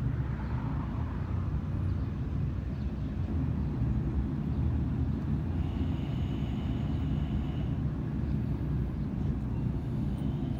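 A vehicle engine idling nearby, a steady low rumble, with a faint high whine for a couple of seconds around the middle.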